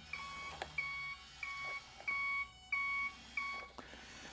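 Reversing beeper from the Turbo Racing C50 1/76-scale RC semi-truck's sound module: a steady series of short, even beeps at one pitch, about one and a half a second, stopping near the end as the truck backs up.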